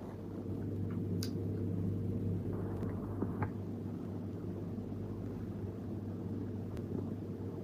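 A steady low hum over a background hiss, with a few faint clicks about a second and three and a half seconds in.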